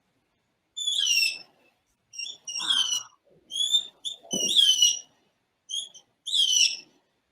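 Analog electronic birdsong circuit imitating a blue jay, played through a speaker: about seven short, high chirps, mostly falling in pitch, separated by pauses. The song is generated by five astable multivibrators and a modified Hartley oscillator.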